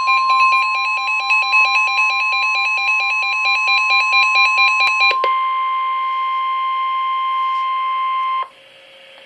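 Weather-radio emergency alert tones announcing a severe weather warning: a fast-warbling electronic alarm over a single steady tone for about five seconds, then steady tones alone, cutting off suddenly about eight seconds in and leaving faint radio hiss.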